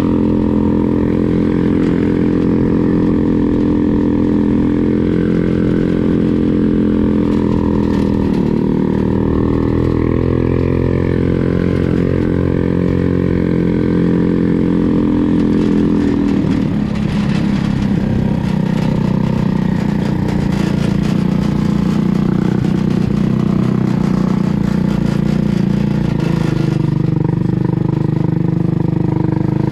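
Yerfdog Spiderbox buggy's 150cc GY6 single-cylinder four-stroke engine with CVT running under way. The engine note dips briefly about eight seconds in, then drops to a lower, steady note about halfway through.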